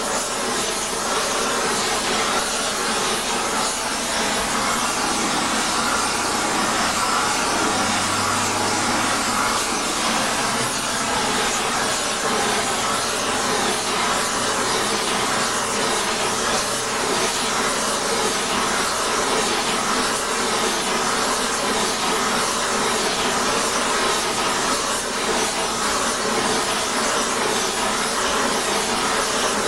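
Oxy-fuel torch flame hissing steadily as it heats an aluminum Harley Shovelhead cylinder head.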